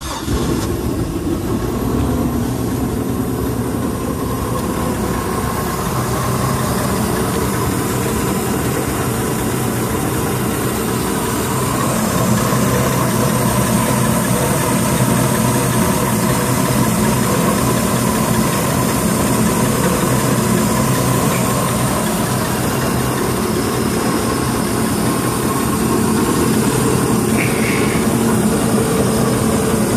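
4.3-litre MerCruiser V6 inboard engine idling steadily, a little louder from about twelve seconds in, close to the open engine compartment.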